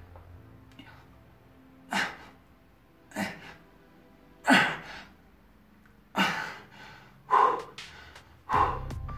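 A man's forceful, strained exhalations, some voiced as grunts, one with each push-up. There are six sharp bursts, about one every 1.2 to 1.7 seconds, from the effort late in a long set of push-ups.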